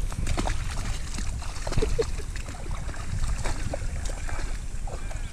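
Dalmatian wading and splashing through shallow river water, with wind rumbling on the microphone.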